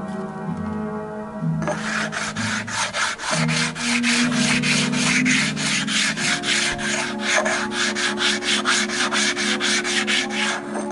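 Flat stone rubbed back and forth over the cast-iron deck of an engine block, dressing the head-gasket surface and taking down high spots. A fast, even rasping of about four strokes a second starts a second and a half in.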